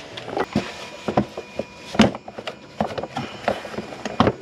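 A series of irregular knocks and clicks, with the loudest about two seconds in: handling noise while working around the car.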